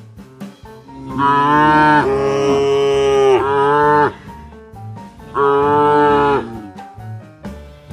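Cow mooing: one long moo of about three seconds, starting about a second in, then a shorter moo near the six-second mark, over background music with a steady beat.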